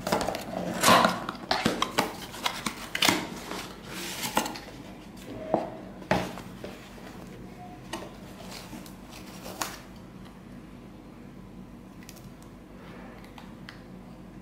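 Product packaging being opened and handled: a paper box pulled open and a fabric wrap taken off a plastic phone mount, making irregular rustles, crinkles and clicks. They come thickest and loudest in the first few seconds and thin out after about ten seconds.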